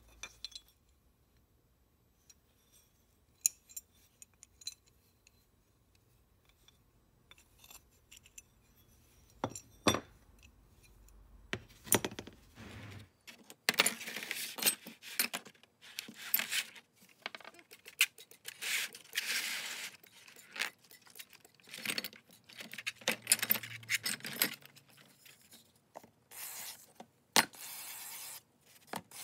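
Small metal block-plane parts clinking and tapping as they are handled and set down, a few sharp clicks at a time. From about thirteen seconds in, denser scraping and rubbing comes in quick repeated bursts.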